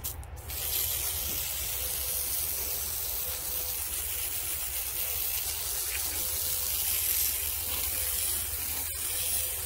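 Sawmill starting a cut through a silver maple log: a steady hissing noise comes in about half a second in and holds evenly, over a low running hum.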